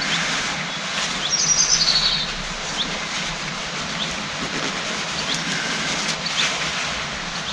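Steady rushing background noise with small birds chirping now and then, including a short warbling call about a second and a half in.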